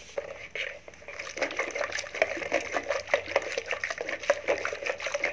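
Hand churner (rai) spun in a steel pot of mango pulp and water, beating it: quick sloshing and splashing with a dense run of small clicks. Quieter for about the first second and a half, then louder.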